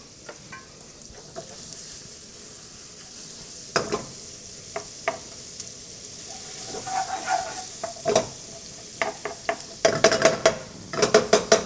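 Butter and roasted garlic sizzling in a nonstick frying pan as they are stirred with a wooden spoon. The spoon knocks against the pan now and then, and the knocks come thick and fast near the end.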